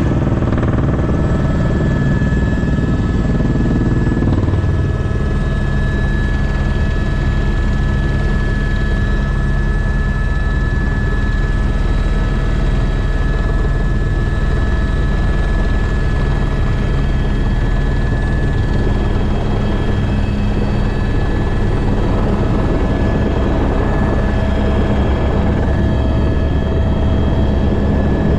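Helicopter in flight: the steady noise of its rotor and turbine engine, with a constant high whine over a dense low rumble.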